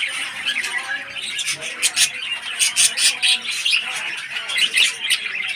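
Several birds chirping and squawking together, with many short, sharp calls in quick succession over a continuous chatter.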